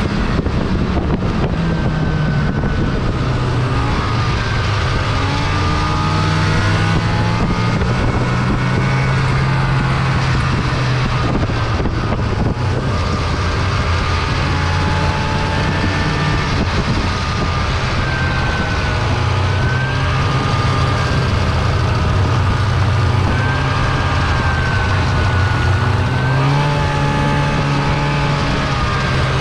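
Snowmobile engine running at a steady cruising speed, its pitch dropping slightly about two seconds in and rising again near the end, over a steady hiss of track and snow.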